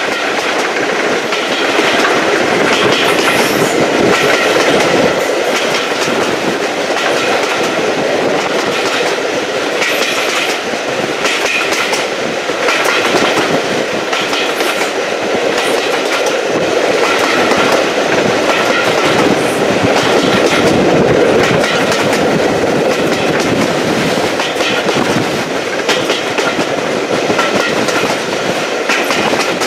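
Diesel-hauled train running at a steady pace, its wheels clicking over the rail joints above a continuous rumble of running gear.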